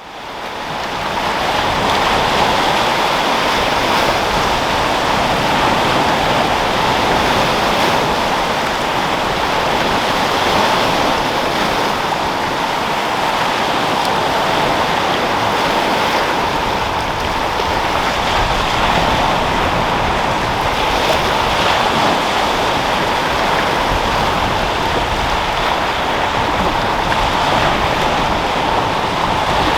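Sea waves rolling and breaking in a continuous foamy wash, with wind. It fades in over the first two seconds, then holds steady.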